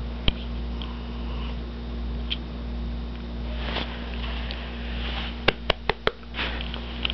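Domestic cat snoring, soft breathing sounds over a steady low hum. A quick run of four sharp clicks comes near the end.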